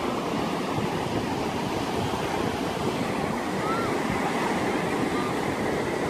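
Ocean surf breaking and washing up the shore, a continuous, even rush of waves.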